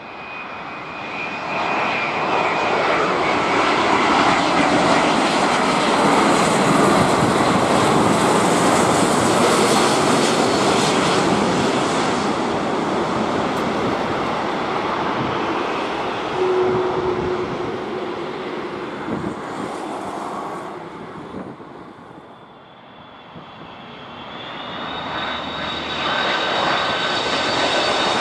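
Jet engines of a Singapore Airlines Boeing 787-10 on final approach, building to a loud, steady rush as it passes low and flares to land, then dying away about three-quarters of the way through. A Boeing 747-400 freighter on approach then comes in, its engine noise rising again with a high fan whine.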